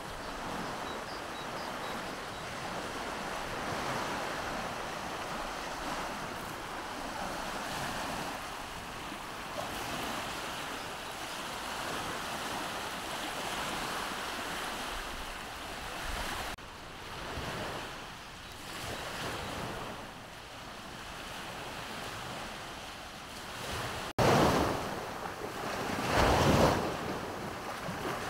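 Sea waves washing onto the shore in a steady, swelling rush, with wind on the microphone. Near the end, a few louder gusts buffet the microphone.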